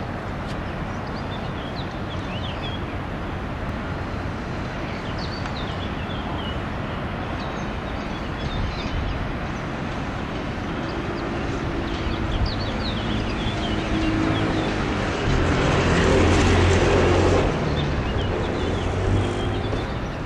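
Distant city rumble with a vehicle's engine hum building in the second half, loudest about three-quarters of the way through, and small birds chirping now and then.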